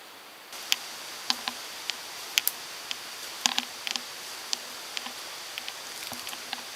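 Mountain stream rushing steadily, stepping up in level about half a second in, with scattered sharp ticks and clicks close by at irregular intervals.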